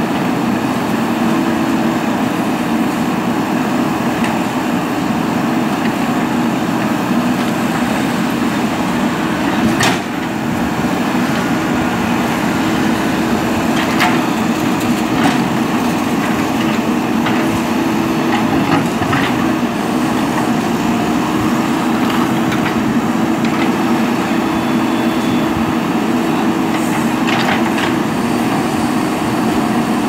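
JCB 3DX backhoe loader's diesel engine running steadily under load as the backhoe works, with a few sharp knocks and scrapes of the steel bucket against broken concrete, the loudest about ten seconds in.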